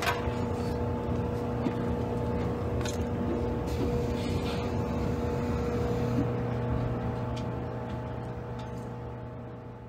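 Inside a JR Kyushu 783 series electric train car: a steady hum of several unchanging tones over a low rumble, with a few faint clicks. It fades out over the last couple of seconds.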